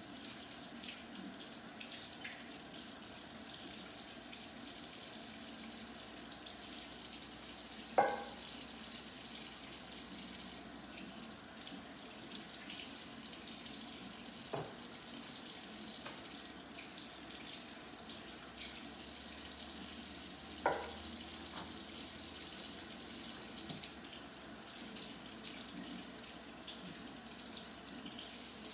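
Kitchen tap running steadily into the sink as raw chicken drumsticks are rinsed under it, with three sharp knocks spread through it.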